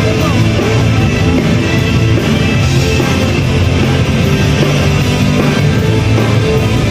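Live band playing loud on stage: a full drum kit and electric guitars.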